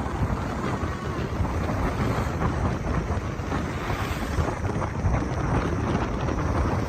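Steady wind noise rumbling across the microphone, a low, even buffeting.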